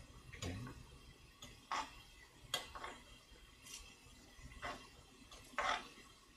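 Spoon scraping and clinking against the inside of an earthenware ttukbaegi pot while stirring egg mixture that is starting to set on the bottom. The strokes are short and separate, a few seconds apart.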